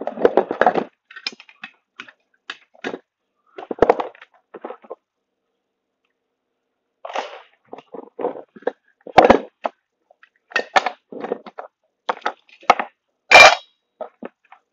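Irregular clicks, knocks and clatter of small plastic and metal parts being pulled apart and handled by hand on a wooden workbench. There is a short pause in the middle, and the sharpest, loudest knock comes near the end.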